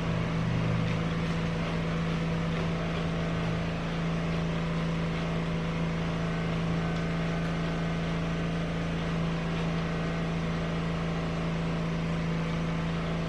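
Steady low mechanical hum with a strong constant low tone.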